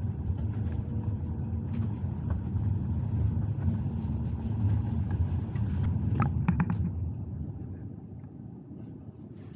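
Car cabin rumble and tyre noise while driving along a wet, debris-strewn mountain road. There is a cluster of sharp clicks about six seconds in, and the rumble falls away near the end.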